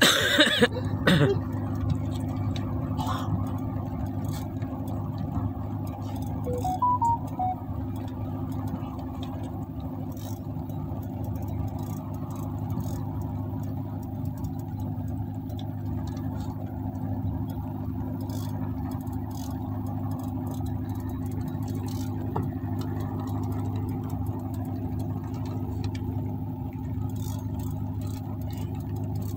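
Small boat's motor running steadily with an even low hum. A few sharp knocks in the first second as the phone is handled.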